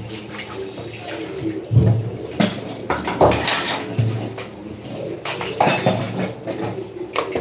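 Stainless-steel pots and plates clanking and scraping as they are washed by hand, with water running and splashing; several sharper metal clanks stand out.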